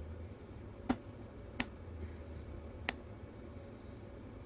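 Three small sharp clicks, irregularly spaced, from hands working on an iPad Pro's flex-cable connectors, over a faint steady hum.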